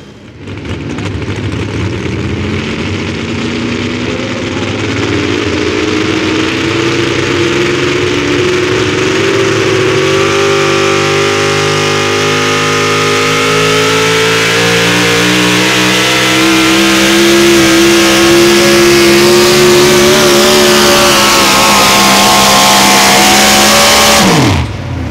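Engine of a competition pulling vehicle running hard at full throttle under load, over steady noise. Its pitch climbs over the first ten seconds or so, then holds high and loud. It falls away sharply near the end.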